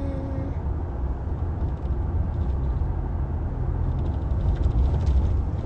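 A steady low rumble, with the tail of a sung note fading out about half a second in.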